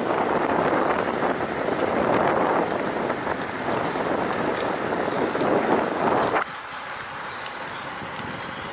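Wind buffeting the microphone of a camera on a moving road bike: a loud, gusty rush that drops suddenly to a lower, steadier hiss about six seconds in.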